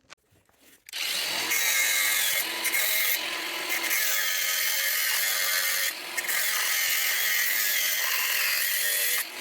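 Handheld power tool running under load for about eight seconds, starting about a second in, with a brief dip near six seconds and a wavering pitch.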